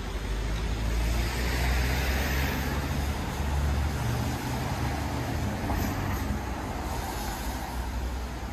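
City street traffic on wet asphalt: a low vehicle rumble throughout, with the hiss of a passing vehicle swelling about a second in and fading away a couple of seconds later.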